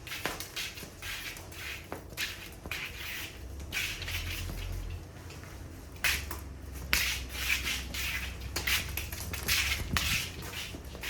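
Irregular rustling and scuffling from cats playing with a ribbon toy, made up of many short scrapes and rubs with a few light knocks.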